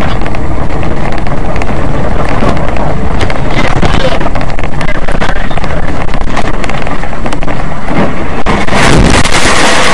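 Loud, harsh vehicle noise with wind buffeting the microphone, overdriven throughout, with a short dip about eight and a half seconds in.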